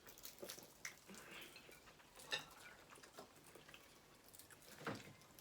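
Near silence with faint, scattered small clicks and smacks from people eating fried chicken at the table: chewing and light taps of cutlery or dishes.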